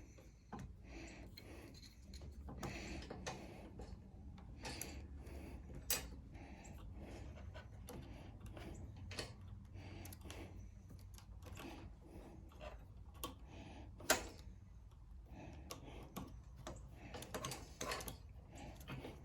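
Scattered light clicks and taps of small metal parts being handled and fitted on a mower carburetor, with two sharper clicks about six and fourteen seconds in.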